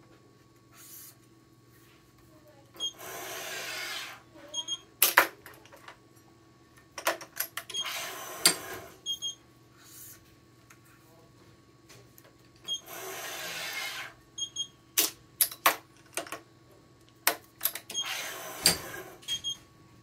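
Badminton string being drawn through the racket frame in long zipping hisses, one about every five seconds, with clicks from the clamps and tension head of a Yonex ES5 Pro electronic stringing machine between them. Short pairs of high electronic beeps come from the machine as it pulls each cross to tension, over a faint steady hum.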